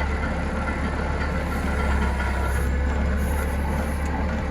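Forklift engine running steadily with a constant low drone.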